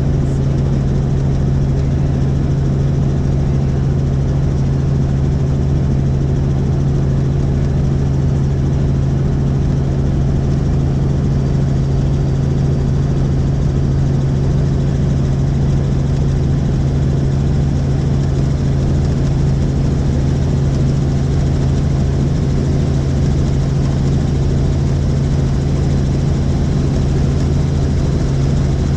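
Helicopter in flight: steady rotor and engine noise dominated by a strong low hum, unchanging throughout.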